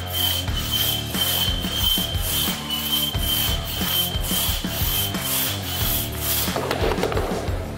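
Large one-man crosscut saw (single buck) rasping through a log in long push-pull strokes, about two strokes a second. The strokes stop a little after six seconds in as the saw comes through the cut, followed by a short burst of noise.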